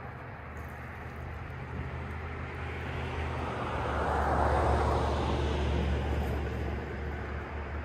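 A passing vehicle: broad engine and road noise builds to a peak about halfway through and fades again, over a steady low hum.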